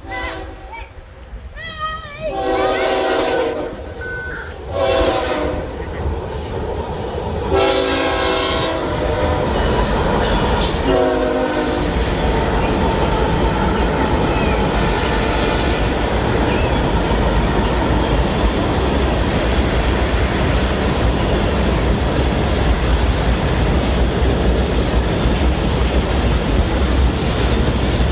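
Florida East Coast Railway freight train led by GE ES44AC diesel locomotives sounding its multi-tone air horn in four blasts, the first about two seconds in, then running past with a steady loud rumble and wheels clacking over the rails.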